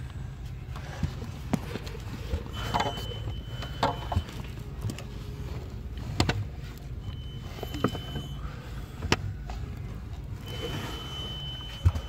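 Scattered clicks and knocks of hand work on the plastic heater blower motor housing under the dash, over a steady low hum. A faint steady high tone comes and goes three times.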